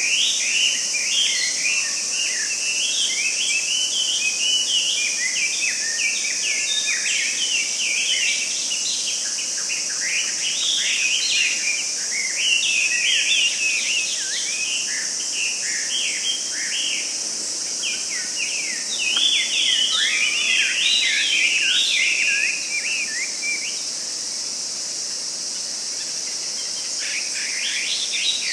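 Late-summer woodland ambience: a flock of birds calling in quick, short chattering notes over a steady high-pitched insect drone. The bird calls pause for a few seconds near the end, then start again.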